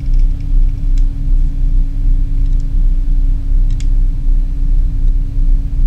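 Steady low rumble with a constant hum, and a few faint light clicks of a metal caliper's jaws on a thin knife blade.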